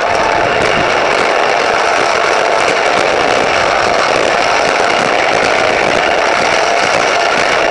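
A small engine running steadily at a constant speed, with a dense mechanical drone that holds level throughout.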